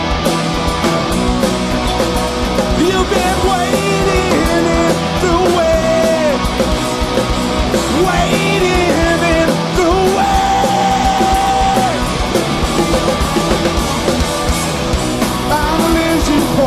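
Rock band playing live through a PA: distorted electric guitars, bass and drums, heard from within the audience.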